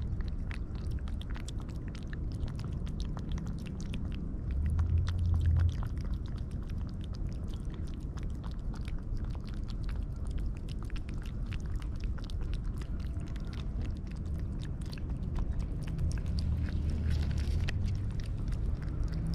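A cat chewing and biting food, a run of many small crisp clicks and crunches throughout, over a low rumble that swells briefly about five seconds in and again near the end.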